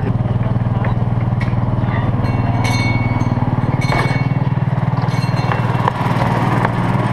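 Small engine of a ride-on miniature train running steadily with a fast pulsing hum as the train travels along its track, with a few clicks and two brief high squeals from the wheels on the rails about three and four seconds in.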